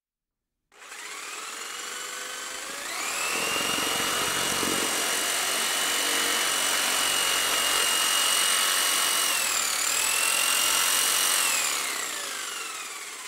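A small high-speed motor whining over a rushing hiss. It speeds up about three seconds in, runs steadily with a brief dip near ten seconds, then winds down toward the end.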